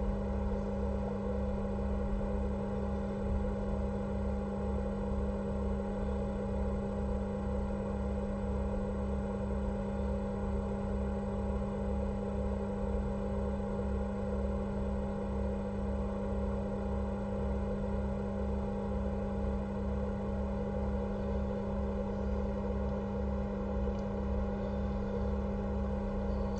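Steady electrical hum with a low throb pulsing about two to three times a second.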